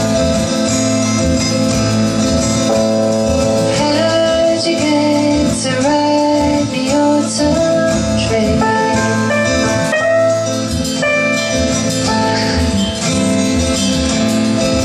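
Acoustic guitar strummed, with a woman singing a melody over it; her voice comes in about three seconds in.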